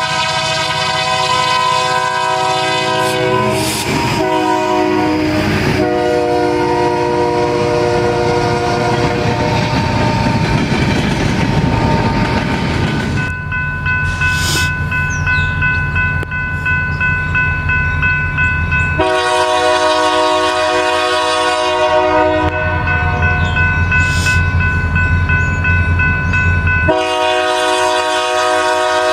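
A diesel freight locomotive's multi-note air horn blows over the low rumble of the engine, briefly broken twice, then fades. About thirteen seconds in, a grade-crossing warning bell starts ringing steadily, and the horn of the approaching train blows two more long blasts for the crossing.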